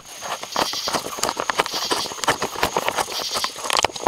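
Rapid, irregular knocks and clicks of a handheld camera being moved and set up on a stand.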